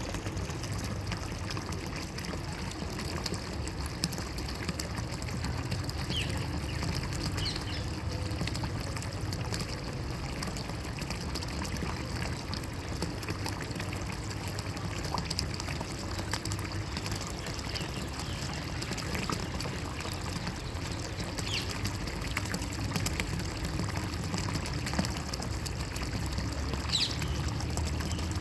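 Water trickling and pouring steadily with an even, unbroken flow, plus a few brief, faint high chirps.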